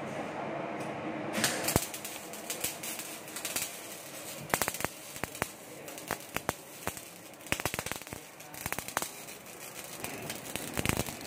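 MIG (GMAW) welding arc on steel pipe: a steady frying hiss with frequent sharp crackles and pops of spatter. It starts about a second in as the arc is struck.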